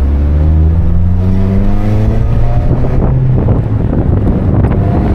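Mazda Miata's four-cylinder engine pulling under acceleration, its note rising steadily for about three seconds, then giving way to wind buffeting the microphone in the open-top car.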